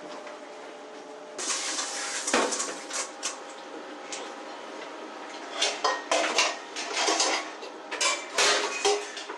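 Dishes and metal cutlery being handled, clinking and clattering in several bunched runs, the first starting about a second and a half in.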